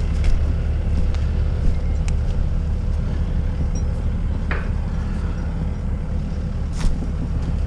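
Diesel engine of the all-terrain crane running steadily with a low rumble, with a few light clicks and knocks over it.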